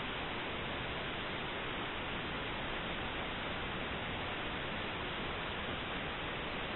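Steady, even static hiss with nothing else standing out.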